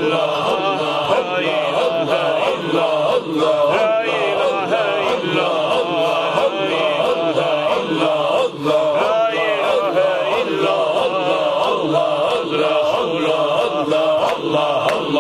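Group of men chanting Naqshbandi Sufi dhikr in unison, a short phrase repeated over and over in a steady rhythm.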